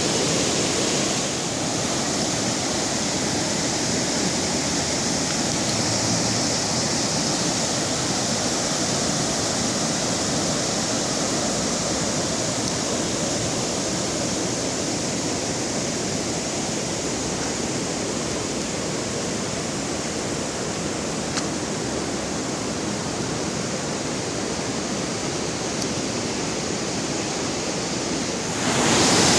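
Floodwater in a swollen creek rushing steadily, a dense unbroken roar of water that gets louder just before the end.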